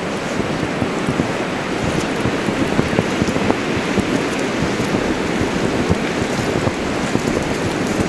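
Steady rushing noise of snowstorm wind, with a dense fine crackle running through it.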